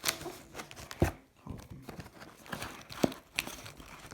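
Cardboard keyboard box and its packaging being opened and handled: light rustling, with a sharp thump about a second in and another knock near the three-second mark.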